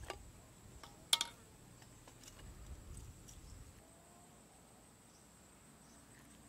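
Metal parts of a car alternator being handled during disassembly: one sharp metallic clink about a second in as the end housing and rotor come off the stator, then faint handling noise that dies away. A faint steady high tone runs underneath.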